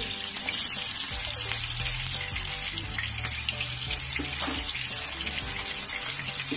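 Skinless longganisa sausages frying in hot oil in a pan: a steady sizzle with many small crackles and pops of spattering oil, over a low hum.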